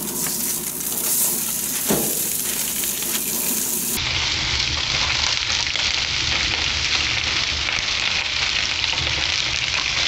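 Thick tomahawk ribeye steak sizzling on tin foil over a hot gas grill as it is seared, with a short knock about two seconds in. The sizzle becomes a brighter, stronger hiss about four seconds in.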